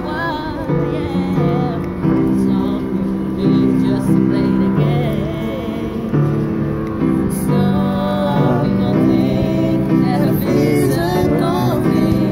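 Upright piano played in held chords with a voice singing a wavering melody over it.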